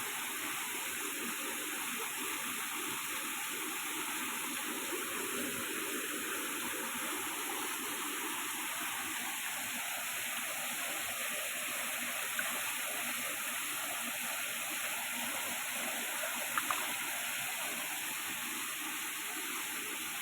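Steady rushing of a waterfall, with a few brief clicks in the second half.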